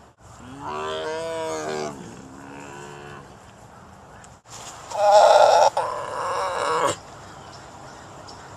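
Tiger calls: a drawn-out moaning call about a second in and a fainter one after it, then a louder, harsher roar lasting about two seconds past the middle.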